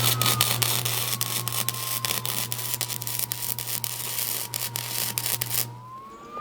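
MIG wire-feed welder laying a bead: a steady, dense arc crackle over a low hum, which cuts off suddenly near the end when the trigger is released.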